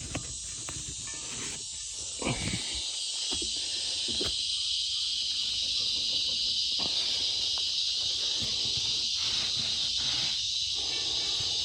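Insects droning steadily in a high, even chorus that swells slightly about four seconds in, with a few light knocks of handling in the first seconds.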